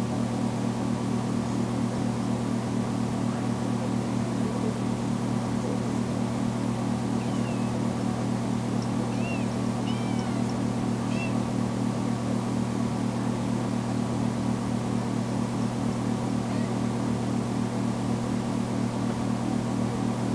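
A steady low hum throughout, with a few faint, short, high-pitched kitten meows around the middle: a freshly spayed kitten crying for her absent owner.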